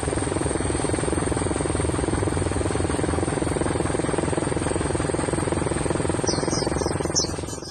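A loud, steady, fluttering rush of noise with a thin high whine over it. About six seconds in, quick high chirps join it, and the rush cuts off abruptly at the end.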